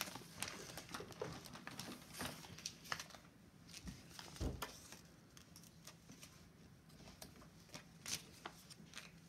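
Faint rustling and light clicks of paper stickers being peeled from their backing and pressed by hand onto a sticker booklet page, with a soft thump about four and a half seconds in.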